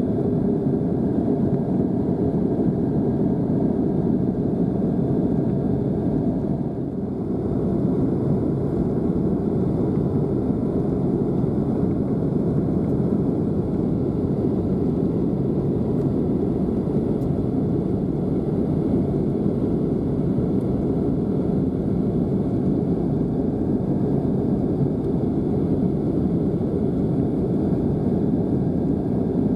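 Steady jet engine and airflow noise inside an airliner cabin, with a brief dip in loudness about seven seconds in.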